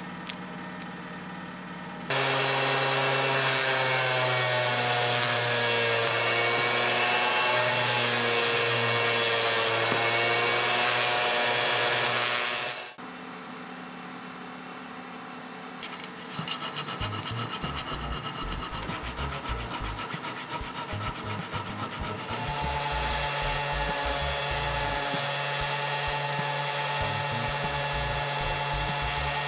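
Small rotary tool with an abrasive wheel running against a threaded metal fitting, its pitch wavering under load, switching on about two seconds in and off near the middle. Then a file or thin toothed blade rubs back and forth in the threads. About three-quarters of the way through, the rotary tool runs steadily again, polishing the fitting's hex.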